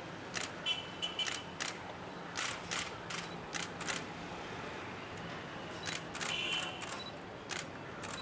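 Several photographers' camera shutters clicking in quick irregular clusters, a dozen or so clicks with a pause in the middle, along with a couple of short high beeps.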